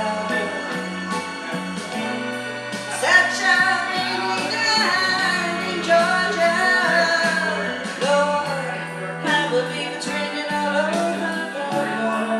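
A woman singing wordless, sliding vocal lines over a slow soul ballad accompaniment with bass and a steady beat; twice her voice slides up into long held notes.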